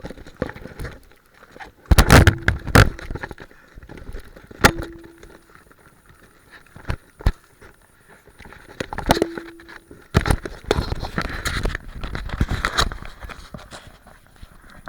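Shotgun shots and handling on a match stage: a quick string of about four loud sharp bangs about two seconds in, then scattered single sharp cracks and knocks through the rest.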